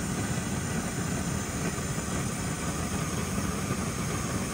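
Jetboil butane camp stove burning at a high flame, a steady low rushing noise, as it heats a cup of water toward the boil.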